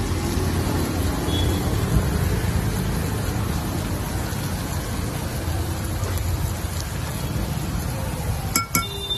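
A steady low rumble, with a few sharp metal clinks near the end as a ladle knocks on the dosa griddle.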